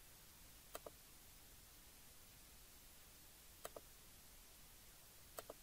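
Computer mouse clicking three times against near silence, each a quick pair of sharp clicks.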